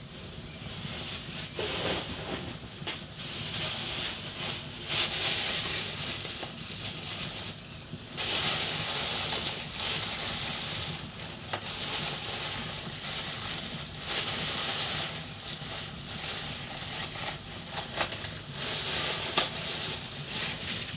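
A steel pot of egusi soup simmering on a gas stove with a steady hiss, while a metal spoon scrapes and knocks against the pot as leafy vegetables are stirred in. The hiss grows louder about eight seconds in.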